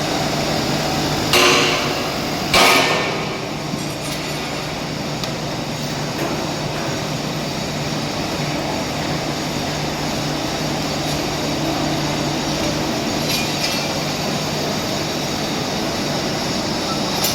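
Two sharp metal knocks with a short ring, about a second apart, over a steady machinery hum, with a few faint ticks later on.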